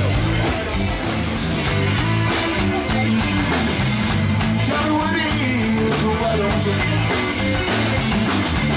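Rock band playing live: electric guitar, bass guitar and drum kit with steady drum hits, and a man singing.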